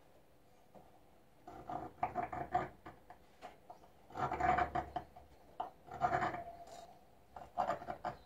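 A pointed metal scribe scratching along the edge of a plastic curve template onto a plate, in about four short bouts of quick strokes that start after a quiet second or so. Some strokes carry a thin squeal from the scribe's point.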